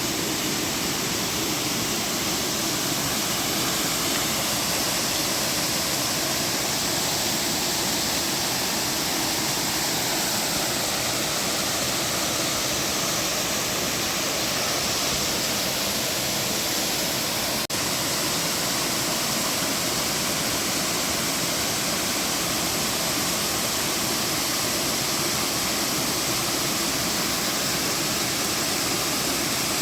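Waterfall: a steady rushing of falling water, even and unbroken, with a single brief click and dropout a little past halfway.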